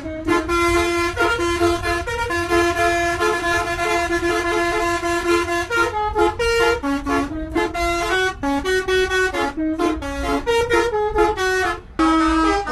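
Indonesian telolet bus horn played as a tune from a keyboard: long held horn notes, then from about six seconds a quick run of short notes jumping in pitch, over a low rumble.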